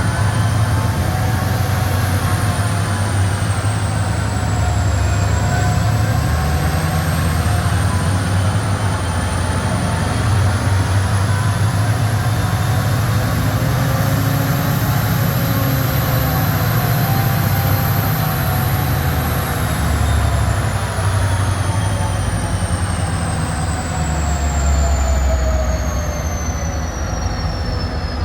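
VR C class diesel-electric locomotive C501, its EMD V16 two-stroke turbocharged engine running hard with a steady deep rumble. A high turbocharger whine rises and falls over it, then drops steadily in pitch over the last several seconds.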